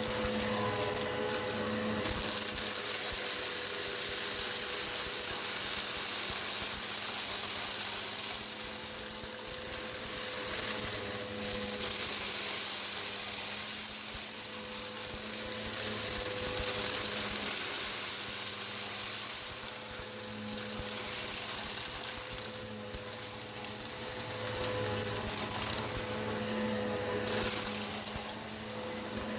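Eureka PowerSpeed upright vacuum cleaner running, a steady motor hum under the loud hiss of its suction, swelling and easing as it is worked back and forth over the floor.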